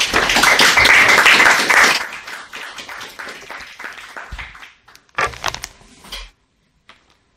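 Audience applauding, loudest in the first two seconds, then dying away. The sound cuts off about six seconds in.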